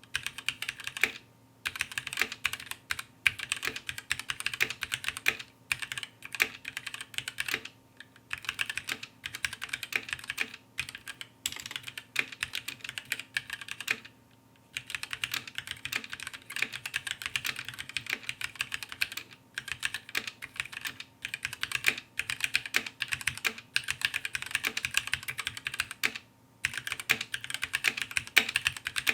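Fast typing on a mechanical keyboard with linear red switches, a rapid run of key clacks. The runs break off in short pauses, with a longer pause about halfway through.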